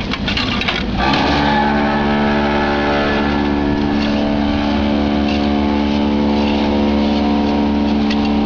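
Mobile hydraulic concrete block-moulding machine running, with a short noisy clatter giving way about a second in to a steady, unchanging hum.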